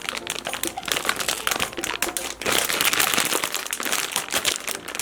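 Plastic packaging crinkling in dense, irregular crackles as a jumbo melon bun squishy is squeezed inside its bag.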